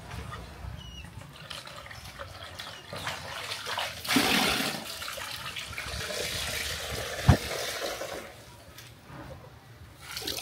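Water running and splashing in uneven surges as basil leaves are washed, with one sharp knock about seven seconds in.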